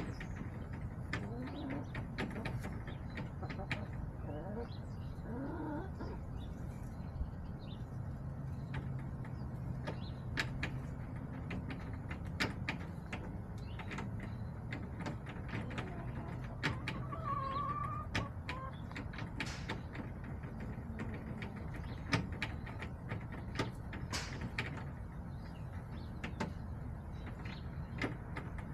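Backyard hens making a few soft, wavering clucks and trills, with many irregular sharp taps and a steady low rumble underneath.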